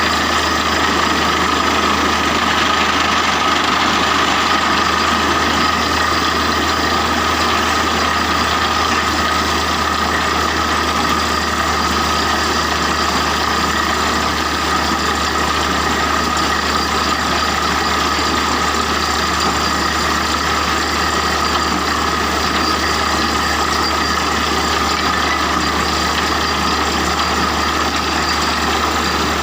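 A large engine running steadily at constant speed, a low drone with a steady whine over it.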